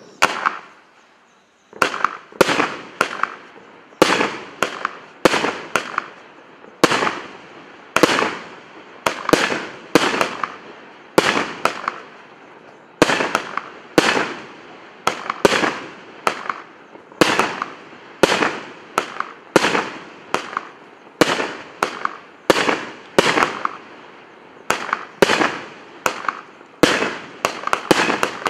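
A Vostochny Express 'Strike' 150-shot firework cake firing a rapid string of shots, about two to three a second, each a sharp bang with a fading crackle. Firing begins almost two seconds in and quickens near the end.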